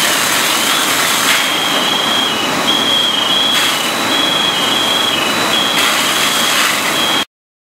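Steady, loud running of fire apparatus engines at a house fire, with a high electronic warning tone over it: the tone slides up and down for the first second or so, then switches between two close pitches in short bursts. The sound cuts off suddenly near the end.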